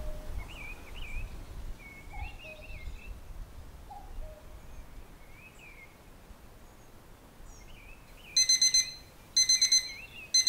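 Birds chirping and singing faintly over a low background rumble, then a digital alarm clock beeping from about eight seconds in: loud quick groups of about four beeps, roughly one group a second.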